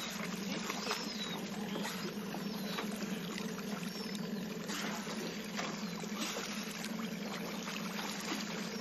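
Water splashing and lapping around a small boat as dolphins surface alongside, over the steady low hum of the boat's idling motor. A few faint, short high chirps come through about a second in and again about four seconds in.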